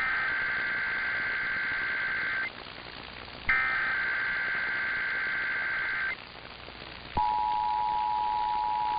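Emergency Alert System digital header tones: two harsh, buzzy data bursts of about two and a half seconds each, a second apart, sent as the SAME header of a required monthly test. About seven seconds in, the steady two-tone EAS attention signal starts and holds.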